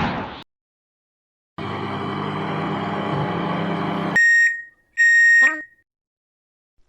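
Microwave oven running with a steady hum from about a second and a half in, which stops and is followed by two high beeps that signal the end of the heating cycle. A falling tone fades out at the very start.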